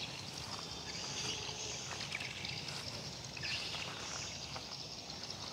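Quiet outdoor background noise: a steady faint hiss with a few soft rustles.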